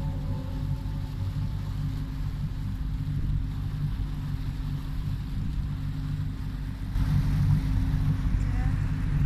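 A small boat's motor running steadily under way, a low hum with water and wind noise, growing louder and rougher about seven seconds in.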